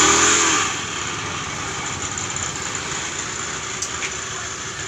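Honda Beat fuel-injected scooter's single-cylinder engine, revved, dropping back in pitch within the first second, then running at a steady idle with the 'snoring' noise from its CVT belt drive. The mechanic finds the scooter noisy and sluggish and traces it to oil in the CVT case.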